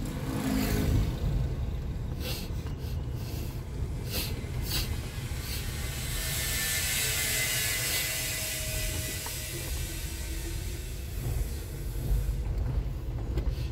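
Road noise inside a moving car: a steady low rumble, with a few sharp clicks in the first five seconds and a hiss that swells and fades in the middle.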